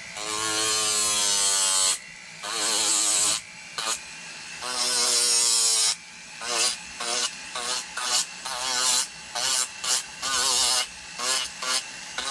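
Foot-pedal-controlled rotary carving tool grinding into wood in bursts. There is a run of about two seconds, then two shorter runs, then many quick short pulses. The motor's whine rises and falls in pitch as the pedal is worked and the bit bites.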